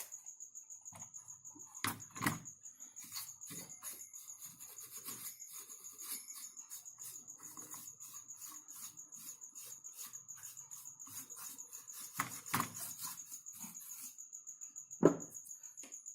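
A brush rubbing over computer parts in quick, even scratchy strokes, about three or four a second, with a few knocks as the parts are handled. A steady high-pitched whine runs underneath.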